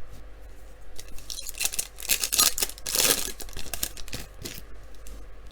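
A trading-card pack wrapper being torn open and crinkled by hand. The crackling is densest about two to three seconds in.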